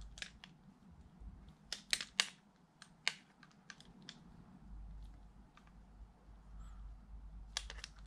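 Scattered light clicks and taps of a hex driver and a plastic RC car suspension arm being handled while the arm's play-adjusting screws are backed off, with a quick cluster of clicks near the end. A faint low hum comes in about halfway.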